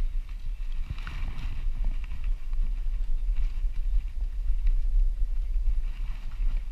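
Wind rumbling on the microphone as a 1970s BSA Javelin racing bicycle rolls over block paving, with irregular clicks and rattles from the bike jolting over the paving joints.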